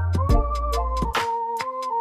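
Background music: an electronic beat with deep bass, drum hits and a plucked melody.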